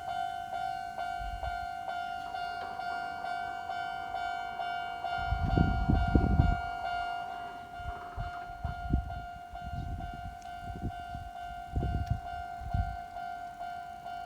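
Japanese level-crossing warning bell ringing steadily, a pitched electronic clang repeating about three times a second. Under it an electric train rumbles past, loudest about five to seven seconds in, followed by separate low thumps of wheels over the rail joints.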